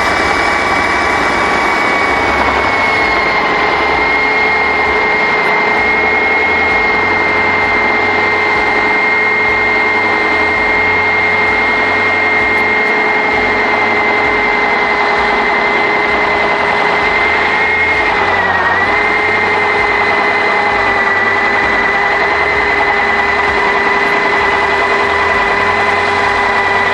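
Milwaukee MX FUEL handheld core drill running steadily, its motor giving a constant whine over a gritty noise. The pitch dips briefly a little after halfway through.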